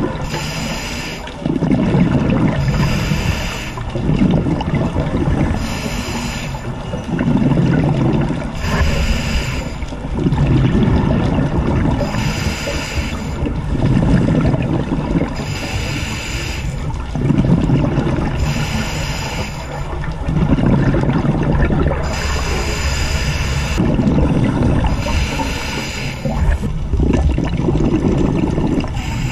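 Scuba diver breathing through a regulator underwater: a hissing inhale alternates with a gurgling rush of exhaled bubbles, about one breath every three seconds.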